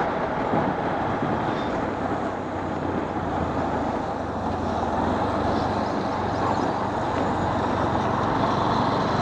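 Honda X-Blade single-cylinder motorcycle engine running steadily at road speed, under a steady rush of wind and road noise.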